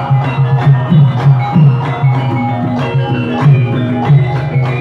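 Javanese gamelan music for a lengger dance: low drum strokes that bend upward in pitch keep a quick, even beat under ringing metallophone and gong tones.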